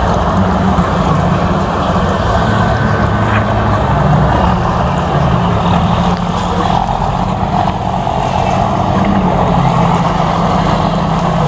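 Motorboat engines running steadily and loud, a low wavering drone under a dense rushing noise.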